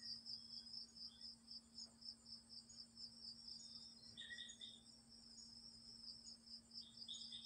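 Crickets chirping faintly at night in an even, pulsing rhythm, with two short louder bursts of chirping about four seconds in and near the end, over a low steady hum.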